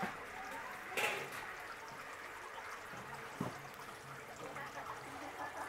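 Creamed spinach simmering in a cast-iron Dutch oven, a soft steady bubbling, with a sharp clink about a second in and a dull knock about three and a half seconds in as metal tongs strike the pot.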